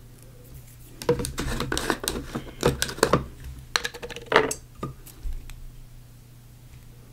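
Rapid clicking and clinking of small hard objects being handled on a work table for about four seconds, with a short ringing clink near the end, as supplies are handled to apply sealer.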